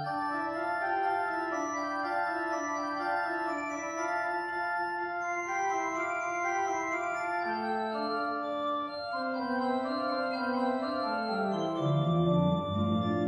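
Pipe organ playing several sustained voices that move against one another, with lower, louder bass notes joining near the end.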